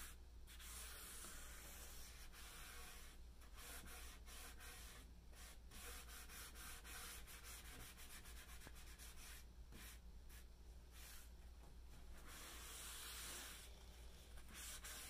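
Faint hiss of a stain-soaked paper towel being rubbed over a wood-grained tabletop, in repeated strokes with brief pauses between them.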